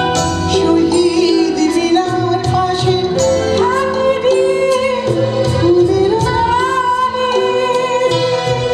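A woman singing a song live into a microphone, with long held notes, accompanied by a small band of tabla, keyboard and electric guitar.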